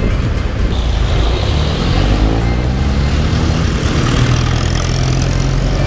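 Riding a motor scooter through traffic: a steady low rumble of wind on the microphone and engines, with an engine rising in pitch as it accelerates about two seconds in, then holding a steady note.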